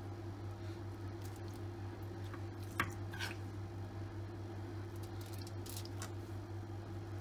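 Marinated chicken drumsticks being set down on a foil-lined baking tray over sliced onions and carrots, with a few soft squishes and foil crinkles, the sharpest just before three seconds in. A steady low hum runs underneath.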